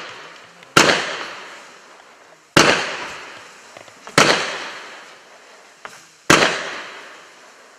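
A 19-shot category 4 low-noise firework cake firing single shots, four sharp reports about two seconds apart, each trailing off in a fading hiss.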